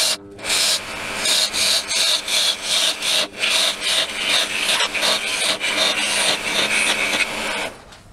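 A parting tool, ground from an old file, cutting a groove into an oak blank spinning on a wood lathe: a scraping, rasping cut that comes in pulses about three a second over the steady hum of the lathe. The cutting and the hum stop near the end.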